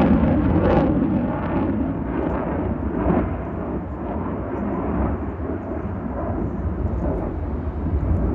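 Jet roar of the F-35 Lightning II's single Pratt & Whitney F135 turbofan: a deep rumble with crackle, loudest at the start and easing a little.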